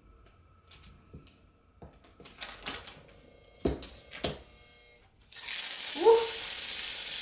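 Butter dropped into hot oil in a cast-iron skillet, bursting into a loud, steady sizzle about five seconds in. Before that, a few light clicks and knocks as the butter is cut with a knife.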